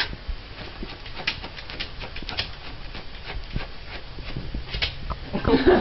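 A dog's paws patting and pressing on a person's body in the trick massage, heard as irregular soft taps and rustling, with a few sharper taps.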